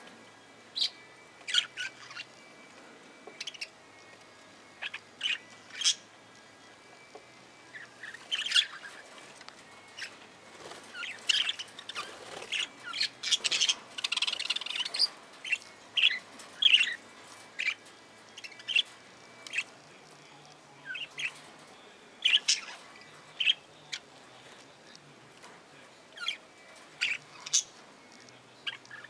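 A flock of budgerigars chirping: short, sharp calls scattered throughout, crowding into a busier stretch of chatter about halfway through.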